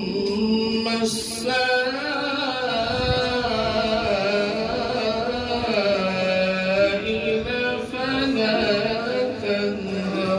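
A man reciting the Quran aloud in the melodic tilawat style, drawing out long, slowly wavering notes in sustained phrases.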